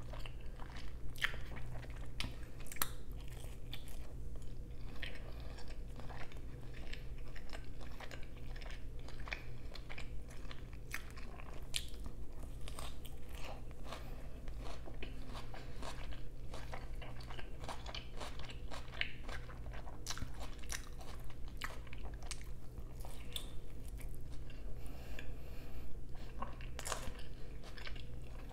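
Close-miked chewing and biting into a slice of shrimp and cheese pizza: a continuous run of small crunches and mouth clicks over a steady low hum.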